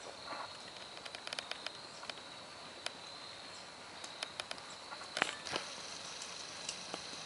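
Faint outdoor ambience: a steady high-pitched drone with scattered light clicks and taps, a few louder ones about five seconds in.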